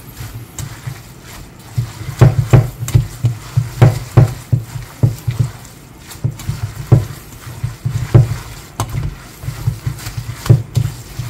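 Cooked thin noodles being tossed and squeezed by hand with red chili sauce in a stainless steel bowl: irregular wet slaps and squelches, several a second, with low thumps, busiest from about two seconds in.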